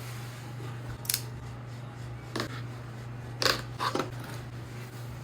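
Mechanical keyboard clacking in four separate sharp clicks, about a second or more apart, the last two close together, over a steady low hum.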